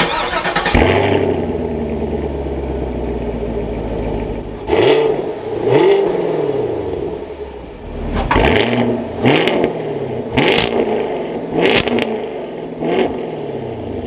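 2021 Chevrolet Camaro SS's 6.2-litre naturally aspirated V8 starting with a loud flare through its quad-tip exhaust, settling into a steady idle, then revved in about seven quick blips from about five seconds in, each rising and falling back to idle.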